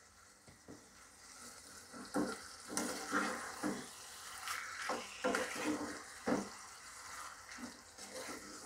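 A wooden spatula stirring salt into spiced pineapple pieces frying in oil in a non-stick pot, with irregular scraping strokes over a soft sizzle. It starts about a second in.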